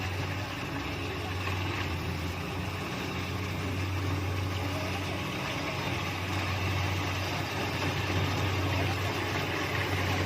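Kubota DC-70 rice combine harvester's diesel engine running steadily under load, a continuous low hum with machinery noise over it.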